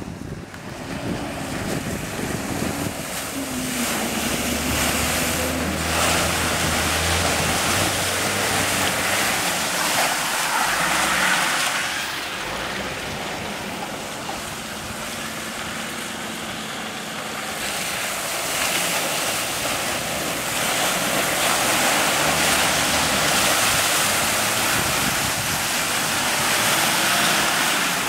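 Off-road 4x4 engine running as the vehicle drives through a shallow flooded stream, under a steady rush of water splashing and flowing, with wind noise on the microphone.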